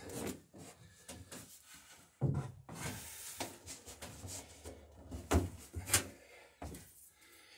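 Scattered wooden knocks and rubbing as someone moves about inside a wooden dory hull under construction, handling the planking and gunwale. The loudest knocks come about two seconds in and again a little past the middle.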